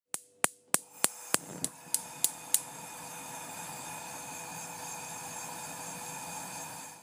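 Logo intro sound effect: about nine sharp clicks, evenly spaced about three a second, then a steady shimmering hum with a few held tones that cuts off suddenly.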